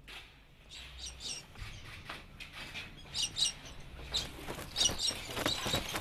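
Birds calling: short high-pitched calls in small clusters, a few every second or two, over a faint low rumble.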